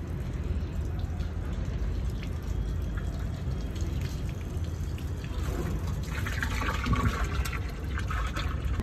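Water being poured and splashed into an air cooler's tank, over a steady low rumble. The splashing grows louder and busier from about five and a half seconds in.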